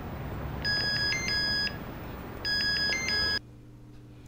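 Mobile phone ringtone: a short electronic tone pattern played twice, each ring about a second long, over steady background noise. The ringing and the noise cut off suddenly about three and a half seconds in.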